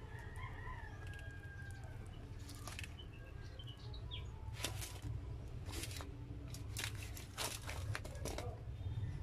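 Aluminium foil and a paper fries carton crinkling as the food is handled, in short scattered rustles, over a low steady hum.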